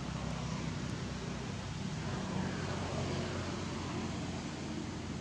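A steady low motor hum under an even hiss, holding the same level throughout.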